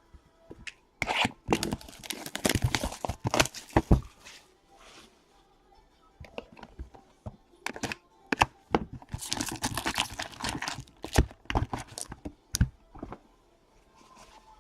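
Plastic wrapping on a box of trading cards being torn open and crinkled, in two main spells of tearing and rustling with sharp clicks between them.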